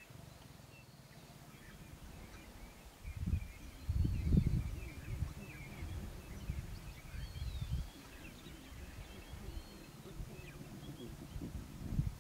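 Lion cubs growling low and grunting as they jostle on top of one another to suckle, loudest about four seconds in. Small birds chirp faintly in the background.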